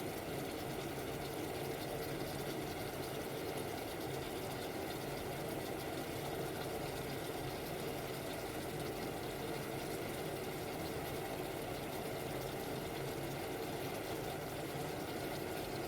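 Water in a pan heating on an electric stove, a steady low rumbling simmer that stays even throughout.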